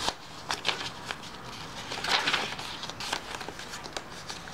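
Paper pages of a handmade journal being turned and handled: a string of short rustles and crinkles, the longest about two seconds in.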